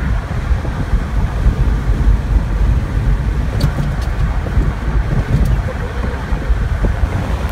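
A car on the move: a steady, loud low rumble of road and wind noise, with a few faint ticks.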